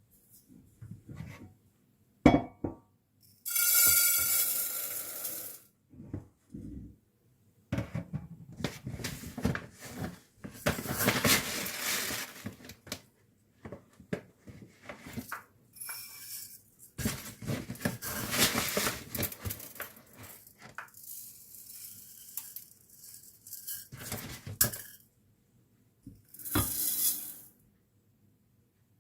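Kitchen pots and utensils clinking and knocking, broken by several stretches of rushing, pouring noise lasting one to three seconds each.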